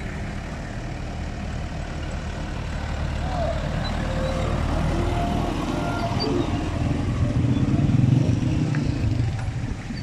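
Engines of a slow convoy of pickups, a truck, a van and motorcycles passing close by, the rumble building to its loudest about eight seconds in as the vehicles draw level.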